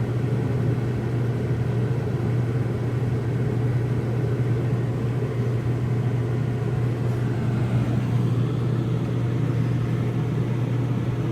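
RV rooftop air conditioner running on high, the steady hum of its compressor and blower fan.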